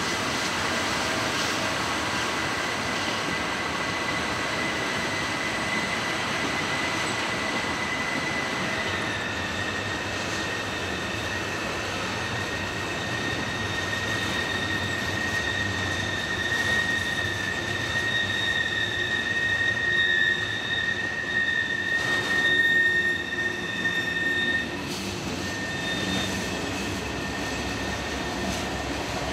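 Freight cars rolling past on a sharp curve, their wheel flanges squealing against the rails in long steady high-pitched tones over the rumble of the wheels. The squeal grows louder for several seconds past the middle, then drops back.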